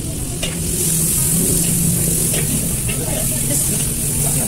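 Seasoning paste sizzling in hot oil in a metal wok, the hiss swelling about a second in, while a metal spatula stirs and scrapes against the wok with scattered clicks. A low steady hum runs underneath.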